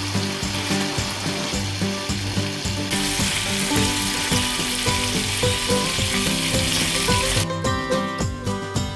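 Bacon strips sizzling in a cast-iron skillet. The hiss grows louder about three seconds in and cuts off near the end, over background music.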